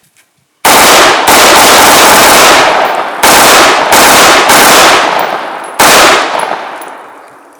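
Six loud gunshots at a shooting range, one about every half second to two seconds, each with a long ringing echo. The echo of the last shot fades out slowly.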